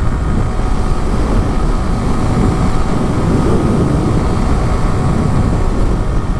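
Yamaha R15's single-cylinder engine running steadily under way, mixed with dense wind rush on the helmet microphone.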